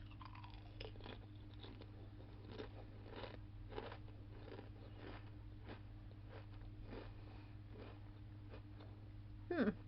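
Person chewing crisp shrimp-flavoured Chip Star potato chips: a string of faint, irregular crunches, about one every half second, with a brief "mm" near the end.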